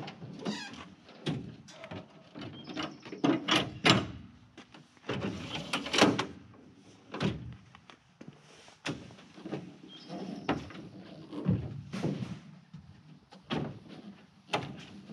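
Pickup tailgate with a built-in fold-out step and grab handle being lowered, unfolded and stood on: a string of metal clunks, latch clicks and rattles, the sharpest right at the start and about six seconds in.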